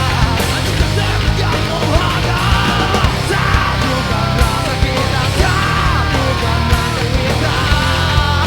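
Loud heavy rock played by a band: a dense full mix with a steady drum beat under it, and a melodic lead line in phrases that bend up and down in pitch.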